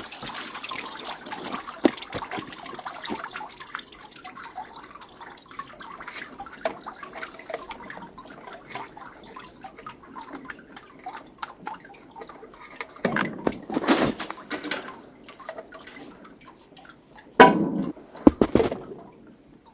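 Water dripping and trickling, with many small clicks and knocks of handling, and two louder bursts of noise about 13 and 17 seconds in.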